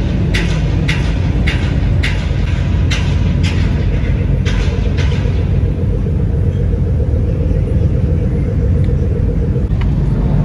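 Modified cars' exhausts rumbling at idle and low speed, echoing in a large hall. In the first half there are sharp pops about twice a second, which stop about five seconds in.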